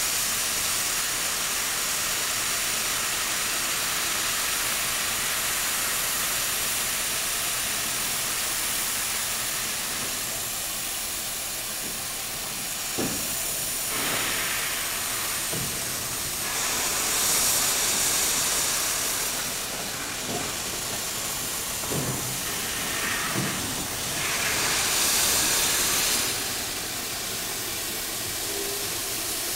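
Alco Tipo 70 steam locomotive standing with steam hissing steadily, swelling twice into louder bursts of hiss in the second half. A few short knocks are heard in between.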